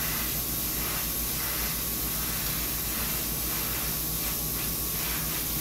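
Iwata HP-CS airbrush spraying a steady hiss of compressed air as it dusts a light shadow of black paint.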